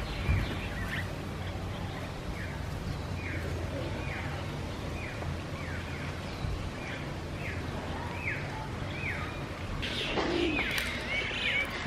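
A bird calling over and over, a short falling chirp repeated at an even pace, roughly every three-quarters of a second, over a low steady hum. Near the end, more varied chirping comes in.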